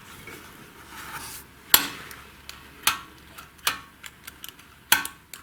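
Sharp metal clicks and taps as a valve is worked against its freshly cut seat in the VAZ 2106 cylinder head, during a seal check. There are four louder clicks about a second apart, with lighter ticks between them.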